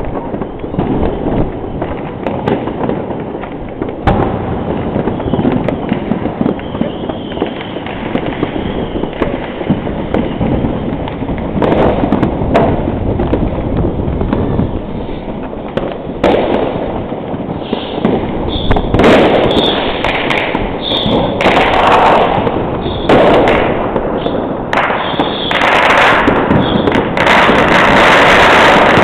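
Fireworks going off all over a city at once: a continuous crackle of bangs near and far, growing denser and louder about two-thirds of the way in.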